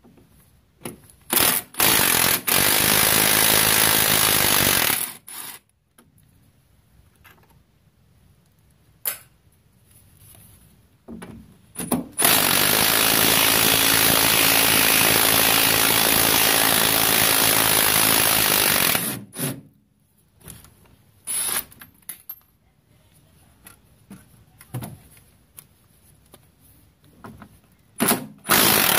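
Cordless impact wrench hammering on the rear strut's lower mounting bolts. There is a run of about three seconds, then a long run of about seven seconds, with a few short blips of the trigger before, between and after.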